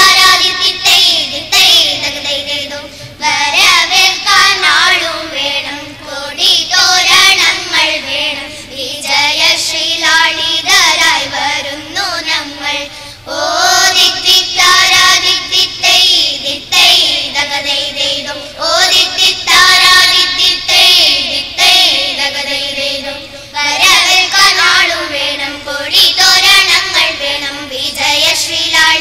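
A group of children singing together into stage microphones, in sung phrases a few seconds long with short breaths between them.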